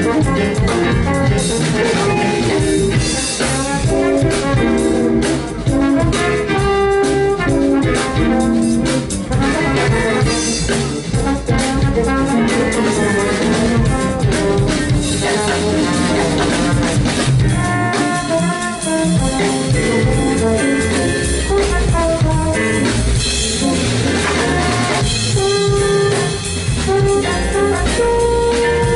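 Live jazz band playing: trombone over a drum kit, with electric bass, electric guitar and keyboard.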